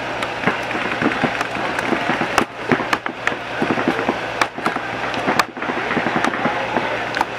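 Paintball markers firing: irregular sharp pops, some in quick strings, from several guns across the field.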